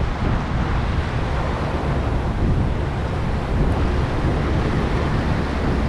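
Wind buffeting the microphone outdoors, a steady rushing noise with a heavy low rumble.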